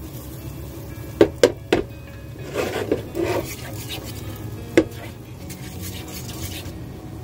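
A spatula knocking and scraping in a non-stick frying pan as sliced onions and chives are stirred in butter. There are three sharp knocks in quick succession about a second in, then a stretch of scraping, then one more knock near the fifth second.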